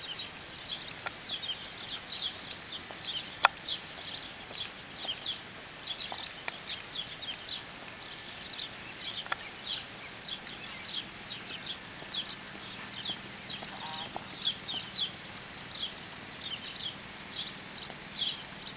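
A steady chorus of short, high chirps, several a second, with a few scattered sharp clicks, one louder about three and a half seconds in.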